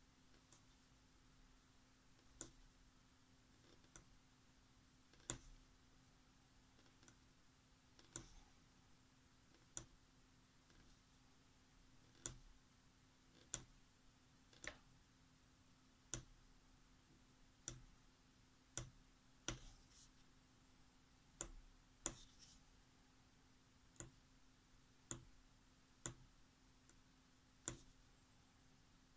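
Hand carving of a rubber eraser stamp with a small metal carving tool: sharp, irregular clicks and taps, roughly one every second or two, as the blade works the eraser, over a faint steady hum.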